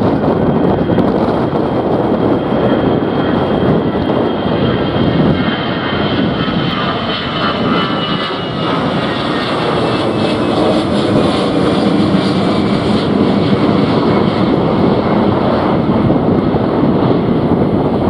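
Airbus A319 jet airliner's CFM56 turbofans at take-off thrust as it climbs out past overhead. A loud, steady engine noise carries a high fan whine that slides slowly down in pitch over several seconds as the jet passes.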